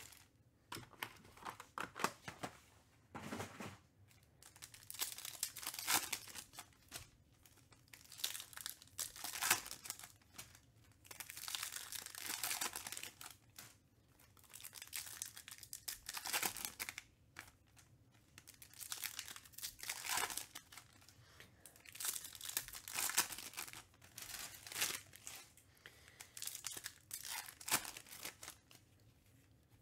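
Trading-card pack wrappers being torn open and crinkled by hand, in repeated crackling bursts every second or two.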